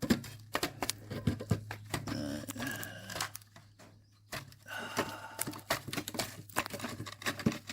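Irregular clicks, taps and rattles of hand tools and metal parts being handled under a car, over a steady low hum.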